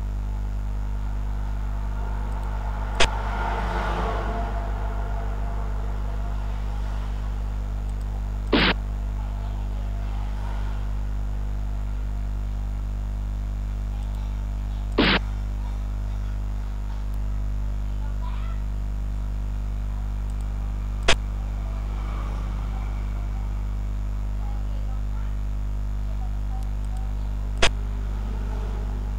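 Steady low hum under five sharp clicks about six seconds apart: the move sound of a xiangqi board program as each piece is set down on the board.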